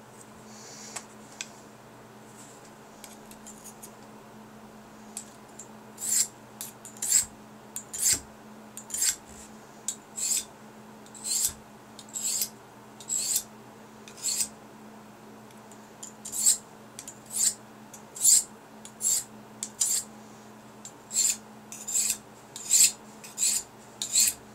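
Stainless steel kitchen knife edge being drawn across the ceramic side of a Fallkniven DC4 whetstone: a run of short, sharp scraping strokes about one a second, starting about six seconds in, with a brief pause midway.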